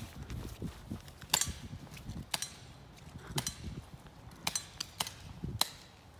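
Airsoft pistol shots: a series of sharp, separate cracks, roughly one a second.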